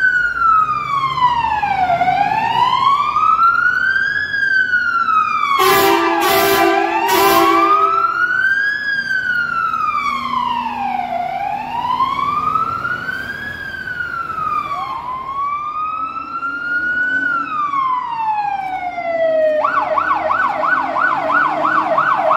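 Fire engine electronic sirens wailing, rising and falling slowly about every four and a half seconds. Three short horn blasts come about six to seven seconds in. Near the end the siren switches to a fast yelp, about four sweeps a second.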